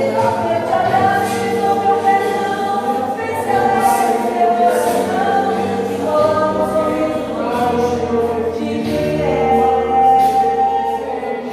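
A choir singing a gospel hymn with instruments accompanying, with sustained held notes and a bass line that changes note every couple of seconds.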